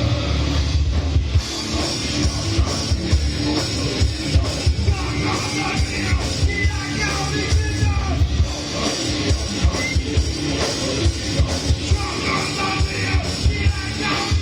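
Loud live rock band playing with fast, dense drum hits, and a voice singing or shouting over it in the middle part.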